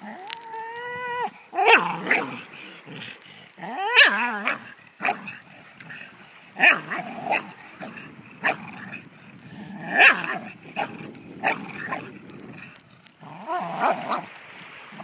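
Staffordshire bull terrier growling, whining and giving short barks in bursts every second or two as it tugs on a boat's mooring rope with its teeth.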